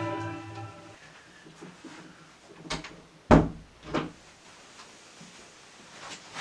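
The last chord of an orchestral intro fades out in the first second. Then come knocks and thuds of a room door being opened and shut: three in quick succession about three seconds in, the middle one the loudest, and a lighter knock near the end.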